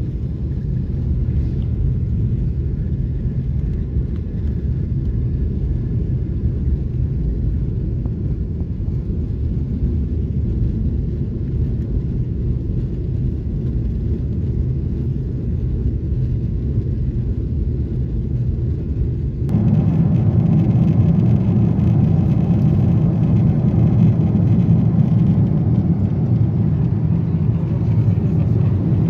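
Boeing 777-300ER's GE90 engines and airflow heard inside the cabin through takeoff and lift-off, a loud steady low rumble. About twenty seconds in it switches abruptly to a louder, fuller steady cabin noise.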